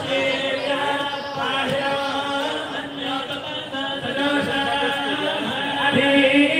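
A group of Ayyappa devotees chanting a devotional chant together, with a steady held note running underneath.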